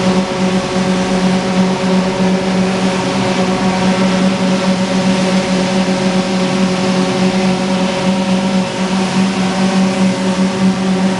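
Chilli-processing plant machinery running, a loud steady drone with a constant hum tone over a noisy mechanical rush.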